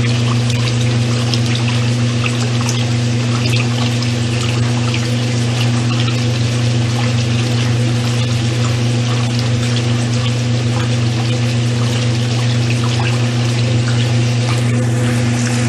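Brastemp Luxo washing machine's drain pump running with a steady electric hum while water pours and splashes through it, emptying the tub at the end of the wash.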